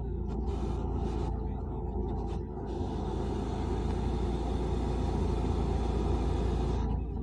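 Tank 300 SUV's engine running under load as it crawls up a muddy slope: a steady low rumble that grows gradually louder through the second half.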